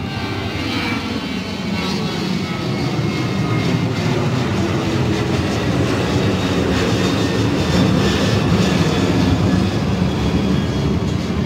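Jet engines of a narrowbody airliner climbing out overhead just after takeoff: a steady, loud rumble that grows gradually louder.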